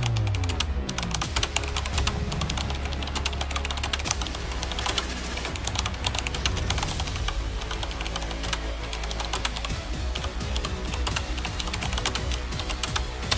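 Fast keyboard typing, a dense unbroken stream of keystroke clicks, over background music with a steady low drone.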